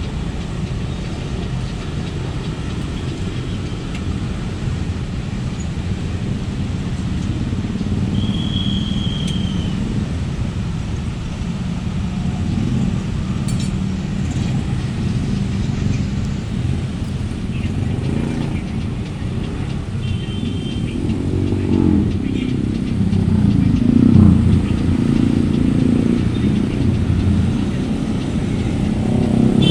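Roadside traffic: motor vehicles running and passing with a steady low rumble, and an engine accelerating and getting louder a little past the middle.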